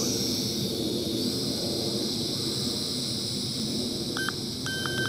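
Mould King 33043 Super F micro quadcopter's four small motors and propellers whirring steadily with a high whine as it hovers. About four seconds in, a run of short electronic beeps from the remote's trim buttons begins.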